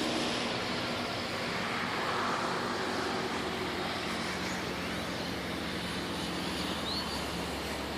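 City traffic ambience: a steady wash of road-traffic noise from passing vehicles, with a brief high chirp near the end.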